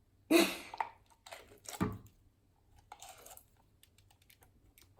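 Scented slime with glitter pieces being squeezed and worked in the hands, giving a few short wet squishes, the first the loudest and a faint one about three seconds in.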